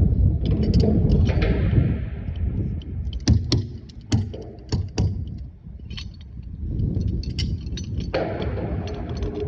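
Metal tools and threaded pipe fittings clinking and knocking at irregular intervals while being handled, over a low rumbling handling noise.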